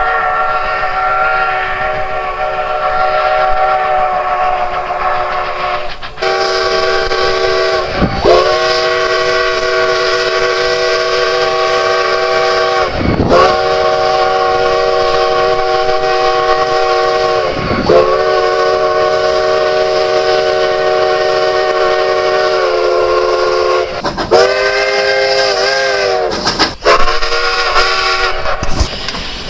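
Steam locomotive whistle sounding a series of long blasts, each about four to five seconds, several tones blended into one chord. Near the end come shorter blasts that waver in pitch.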